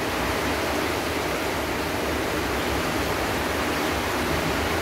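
Heavy rain falling: a steady, even hiss with no breaks.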